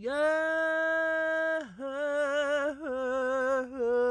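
A solo voice singing a drawn-out, wordless stretch of a slow worship chant: one long held note, then a string of shorter notes with a wavering vibrato.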